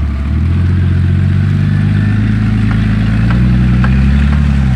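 Off-road 4x4's engine running steadily under load, its pitch drifting slightly up and then dropping near the end, with a few short clicks or knocks in the middle.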